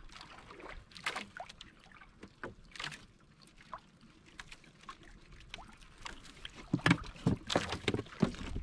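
Water splashing and slapping around a small fishing boat on a rough sea, with scattered short knocks and splashes that grow louder and closer together near the end.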